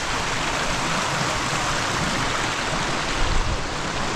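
Creek water rushing steadily over a small cascade of rapids.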